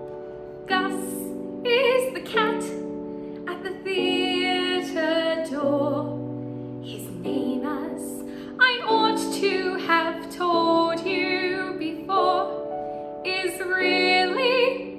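A woman singing a slow show tune with vibrato, in phrases, over piano accompaniment.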